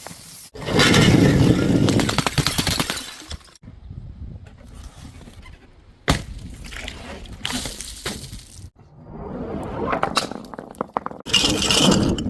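Glass bottles breaking in a series of separate crashes, each a sudden smash followed by a spill of clinking, scattering shards; the longest crash, just after the start, rattles on for about two and a half seconds, and the loudest comes near the end.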